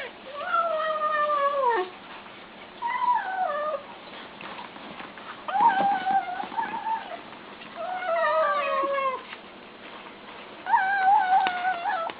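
Domestic cat mewing in five drawn-out calls, each about a second long with short pauses between, several wavering or dropping in pitch at the end.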